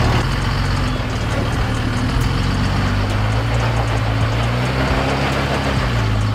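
Dodge Ram 2500 pickup's engine running at low revs while crawling over boulders, its pitch rising and falling slightly with the throttle.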